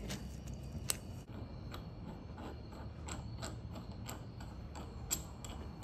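Kuntech KT-3209 timing chain press tool being screwed in by hand on a timing chain to press in a connecting piece: one sharp click about a second in, then even ticking at about three ticks a second as the spindle turns.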